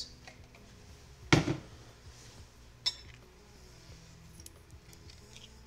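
Dishes and utensils clattering: one heavy knock about a second and a half in, a sharper clink near three seconds, then a few light taps.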